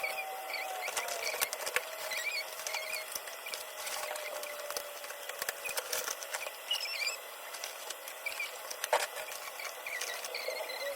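Packaging being handled during an unboxing: scattered small clicks, crackles and rustles, with short high chirps in the background.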